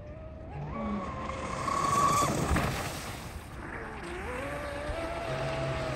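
Pro Boat Blackjack 42-inch 8S brushless RC catamaran running at speed on the water: a high motor whine climbs in pitch about a second in, is loudest around two seconds, then drops and settles to a lower steady whine.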